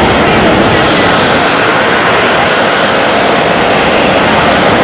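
Four CFM56 jet engines of an Airbus A340-300 on landing approach, a loud, steady, even noise with no change in pitch.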